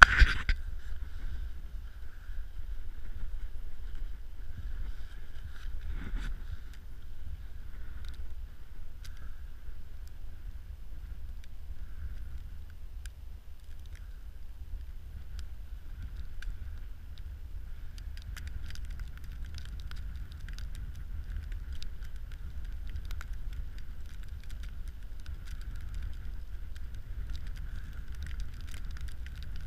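Steady low wind rumble on the microphone, with a sharp knock at the very start and a softer one about six seconds in. In the second half come scattered light clicks as a small ice-fishing reel is wound in by gloved hands.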